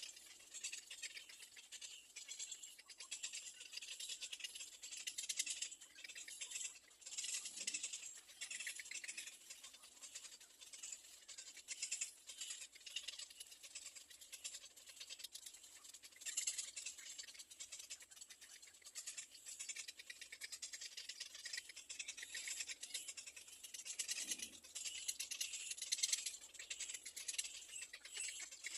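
Nestlings begging: a faint, high-pitched, raspy chatter that comes in uneven surges.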